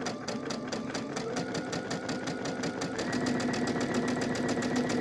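Domestic sewing machine stitching a seam at a short stitch length: rapid, even needle strokes over a motor whine that steps up in pitch twice, about one and three seconds in, as the machine speeds up.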